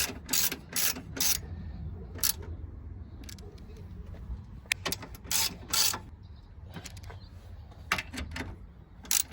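A socket ratchet clicking in short bursts of strokes as 10 mm bolts on a radiator support crossmember are tightened, with pauses between the bursts.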